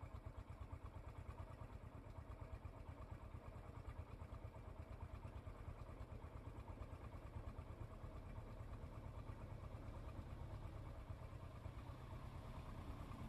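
Vehicle engine idling: a steady low, rapidly pulsing rumble.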